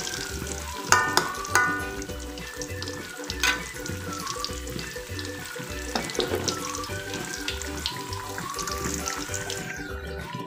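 Tempeh deep-frying in hot oil in a wok: a steady crackling sizzle, with a metal spatula striking the wok with a short ringing clink twice about a second in. The sizzle drops out near the end, leaving background music with a steady beat.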